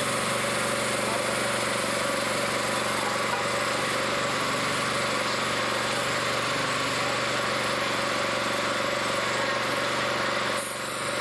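2011 Kia Picanto's petrol engine running steadily during an engine flush, with a brief dip in level near the end.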